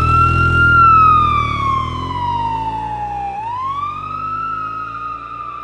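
Emergency-vehicle siren wailing: the pitch climbs, slides slowly down, then climbs again about three and a half seconds in and holds.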